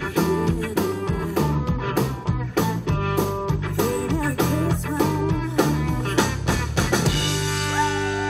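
Live band playing: drum kit, electric guitar and bass with a woman singing over a steady beat. About seven seconds in the drums stop and the band holds a final chord.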